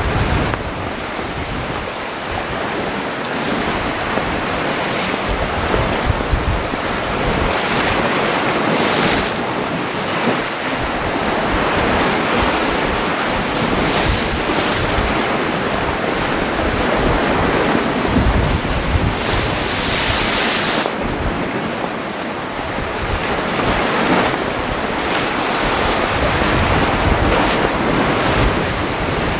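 Sea surf breaking and washing over the rocks, a continuous rushing wash that swells and falls with each wave, with a loud surge about two-thirds of the way through. Wind buffets the microphone with low rumbles.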